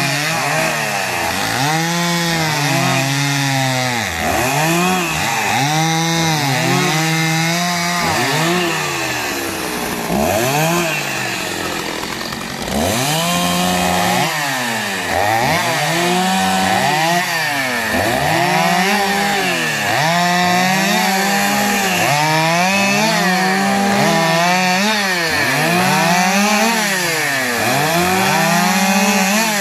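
Chainsaw running hard, its engine pitch swinging up and down about once a second as it revs and bogs, with a rougher, lower stretch near the middle.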